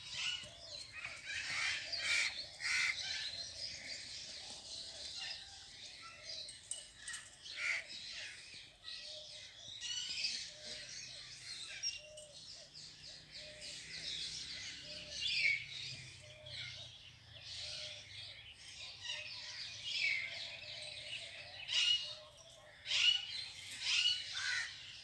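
Many birds chirping and calling in a dense chorus of short, high calls, with a few louder clusters of calls.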